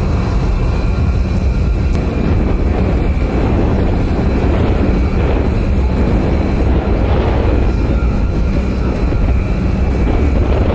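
Steady, loud engine noise: a deep rumble with a thin, steady high whine over it.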